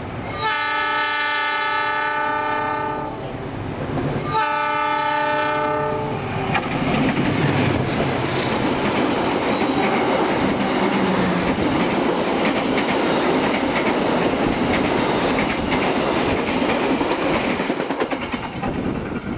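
Diesel locomotive horn blown twice, a blast of about three seconds and then a shorter one, as an oncoming train approaches on the next track. The train then passes close alongside with a loud, steady rushing clatter of its coaches for over ten seconds.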